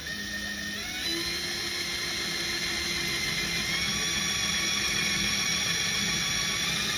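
Cordless drill running steadily as it bores a hole in the car's underside for a nut rivet. Its motor whine rises a little in pitch during the first second, then holds steady.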